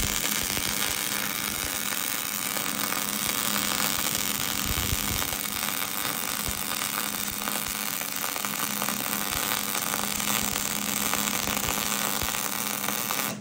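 Stick welding arc crackling steadily as a bead is laid on a cast-iron Dana 60 axle housing, cutting off abruptly at the end.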